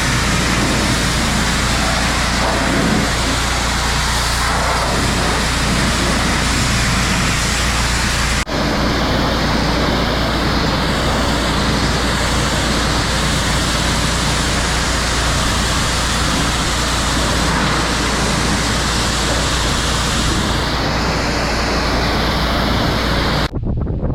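Pressure washer spraying a round baler: a steady, loud hiss of water spray over the washer's constant engine hum, broken by a sudden cut about eight seconds in and another near the end.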